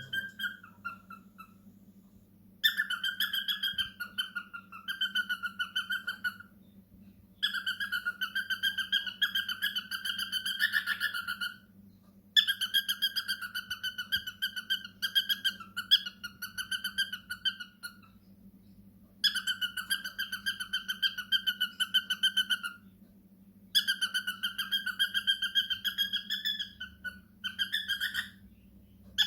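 A pet parrot calls in about five long bouts of a few seconds each. Each bout is a buzzy, rapidly pulsed call held at a fairly steady pitch, with short pauses between bouts, over a low steady hum.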